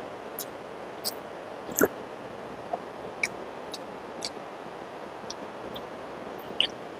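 A person eating, close to the microphone: irregular sharp mouth clicks and smacks of chewing over a steady hiss, the loudest about two seconds in.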